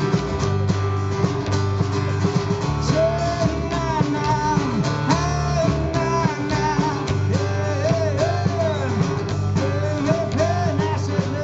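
Live band playing with guitars and a drum kit: steady low notes and drum hits under a melody of sliding, bending notes that comes in about three seconds in.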